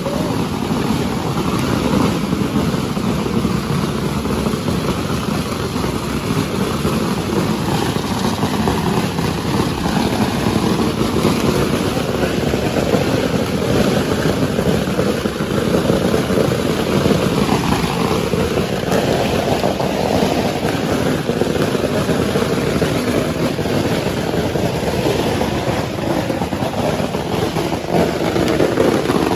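Long Pagara string of firecrackers going off without a break, a dense continuous crackle of rapid bangs.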